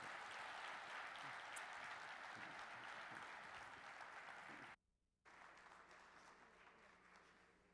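Audience applauding steadily; the sound drops out suddenly for about half a second a little under five seconds in, then returns fainter and fades away.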